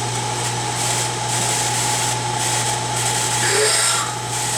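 Drilling machine running steadily with a constant hum, its spindle turning a 0.312 in reamer in the squirter (pump nozzle) hole of a Holley carburetor main body.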